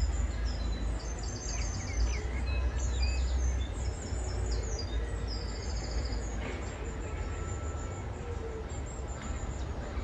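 Small birds chirping and twittering, many short high notes and a few quick trills, over a steady low rumble.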